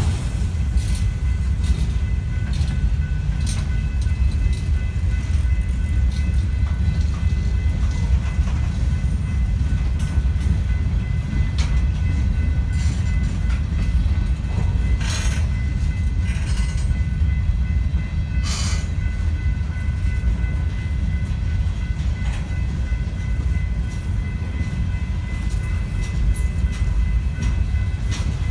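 Freight train of covered hopper cars and boxcars rolling past at close range: a steady low rumble of steel wheels on rail, with scattered knocks and clanks and a few sharper bangs in the middle. A faint steady high ringing tone runs underneath.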